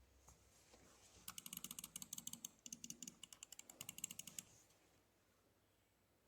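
Quiet, fast typing on a keyboard: a rapid run of key clicks lasting about three seconds, starting a little over a second in.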